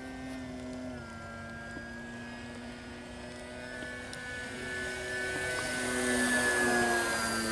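Electric motor and propeller of a Gee Bee R3 RC model plane whining in flight. The pitch shifts with the throttle, it gets louder about six seconds in as the plane comes nearer, and the pitch drops near the end as it passes.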